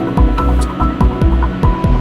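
Background music with a pulsing bass beat and sustained melody notes.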